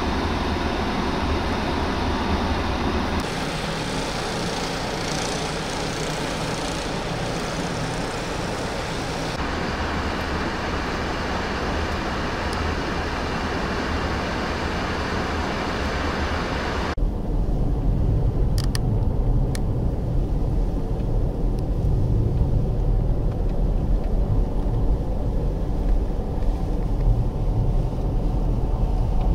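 Blizzard wind and city street traffic, a steady rushing noise that changes at several cuts. From about halfway a heavier low rumble takes over.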